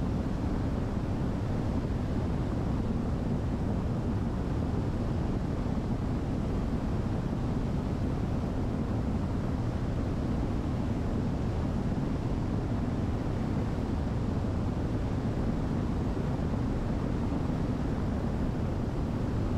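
Diamond DA62 twin-engine airplane in flight, heard from inside the cabin: a steady low drone of engines and airflow that does not change.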